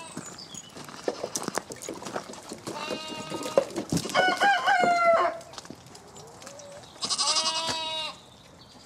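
Zwartbles sheep bleating three times, about three, four and seven seconds in, the middle call wavering and the last one high. Scattered clicks and knocks run underneath.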